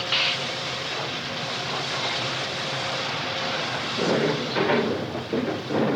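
Railway train running: a steady roar with a held tone through the first few seconds, then louder irregular pulses from about four seconds in.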